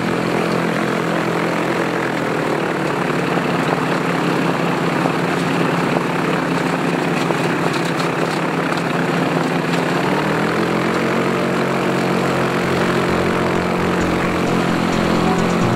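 Ultralight aircraft engine and propeller running in flight, heard from on board with steady wind noise. The engine note dips slightly a couple of seconds in and rises about ten seconds in, a throttle change.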